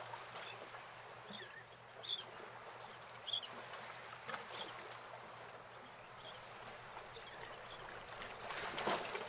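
Quiet harbour ambience: a faint steady wash of water and air, with a few short high chirps standing out in the first few seconds.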